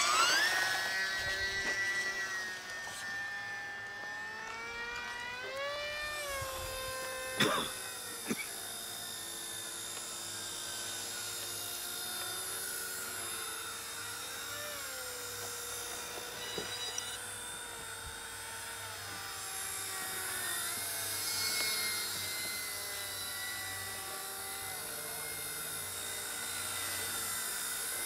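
Small electric RC model aircraft's motor whine, spinning up sharply at the start, then a steady whine that shifts up and down in pitch with the throttle. A single sharp click sounds about seven and a half seconds in.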